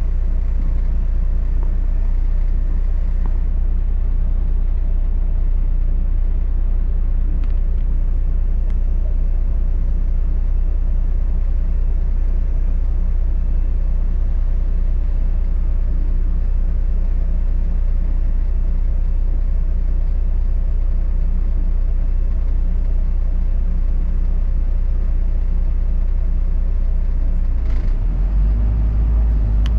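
Steady low rumble of a double-decker bus in motion, heard from on board, with a faint steady hum over it. Near the end the low rumble shifts and grows heavier.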